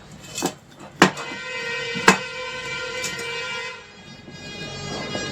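Electronic tractor horn unit on the bench giving a steady, buzzy horn tone for a little under three seconds, set off and broken by sharp clicks, then cutting off. The unit is being powered up to find its fault.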